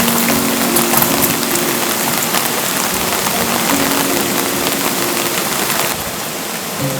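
Steady, dense rain pattering on surfaces. The hiss eases slightly about six seconds in.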